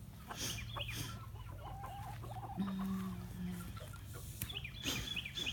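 Backyard chickens clucking and calling, with one longer low call about halfway through and a quick run of high, falling chirps near the end, over a faint steady low hum.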